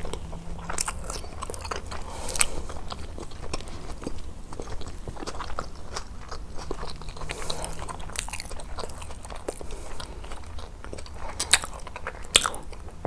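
Close-miked chewing and biting of food, with wet smacks and clicks throughout and a few sharper, louder bites, one about two seconds in and two near the end.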